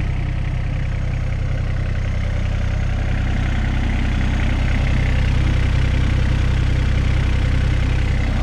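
CAT 302.7D mini excavator's small diesel engine running steadily at a constant engine speed.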